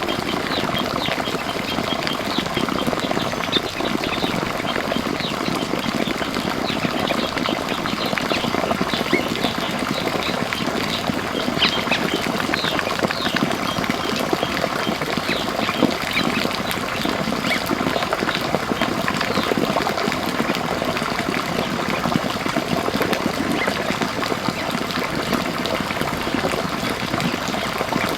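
Many small birds chirping continuously, dozens of short high calls overlapping, over a steady rush of water.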